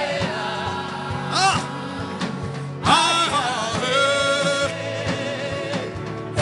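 Gospel worship music: a singer holding drawn-out, wavering notes over an instrumental backing with a steady beat.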